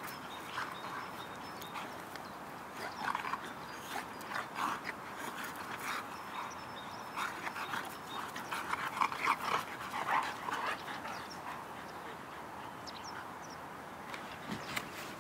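A boxer and a ginger spitz-type dog playing rough, making short dog play noises in irregular bursts that are busiest about seven to eleven seconds in.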